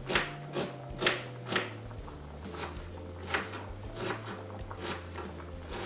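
Kitchen knife chopping an onion on a plastic cutting board: sharp knocks of the blade striking the board, about two a second at first, then slower and more spaced out.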